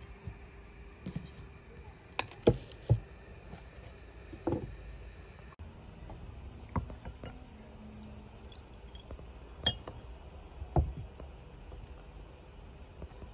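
Tableware knocking on the table as baklava is served: a quick cluster of three sharp knocks about two seconds in, then a few single knocks spread through the rest.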